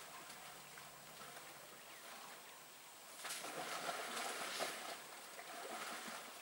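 Elephants wallowing in a muddy waterhole: wet splashing and sloshing of mud and water, louder for a couple of seconds from about three seconds in.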